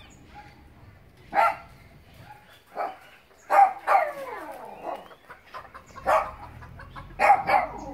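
A dog barking repeatedly in short single barks spaced a second or so apart, with two quick barks close together near the end.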